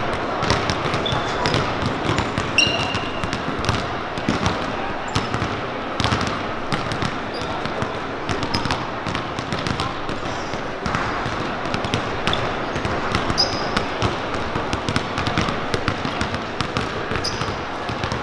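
Several basketballs bouncing irregularly on a hardwood gym floor during warm-up shooting, many sharp knocks overlapping, with a few brief high squeaks of sneakers.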